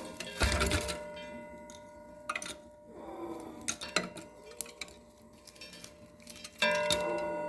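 Metal pieces knocked and clanked together: a sharp metallic strike about half a second in and a louder one near the end, each left ringing, with lighter knocks and taps between.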